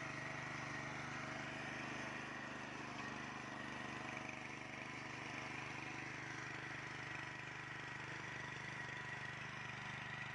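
Small engine running steadily at one speed, with a thin steady whine above it.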